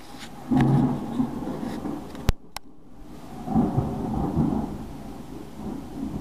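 Thunder rumbling, swelling about half a second in and again midway. A sharp click cuts in a little past two seconds, followed by a fainter one.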